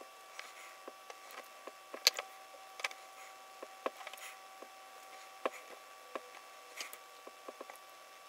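Makeup sponge dabbing and patting white face paint onto the forehead: irregular soft taps and small clicks, with a sharper click about two seconds in, over a faint steady hum.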